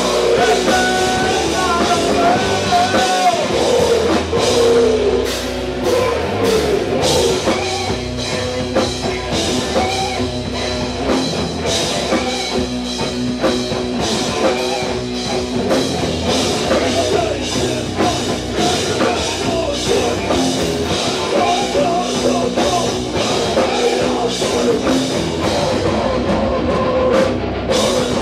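Rock band playing live: electric guitar and a drum kit at a steady loud level, with a wavering lead line over the first few seconds.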